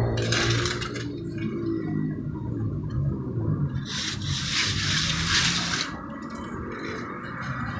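Hand float scraping over wet cement render on a block wall in two hissing strokes: a short one at the start and a longer one from about four to six seconds in. A low rumble runs underneath.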